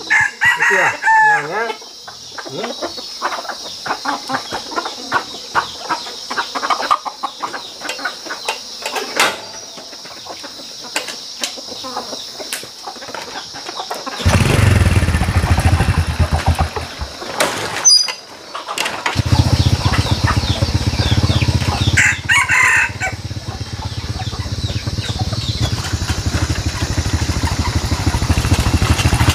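A rooster crows and chickens call, with scattered rustling and clicks. About halfway through, a small step-through motorbike engine starts and runs, stops for about a second, starts again and keeps running, while a rooster crows once more over it.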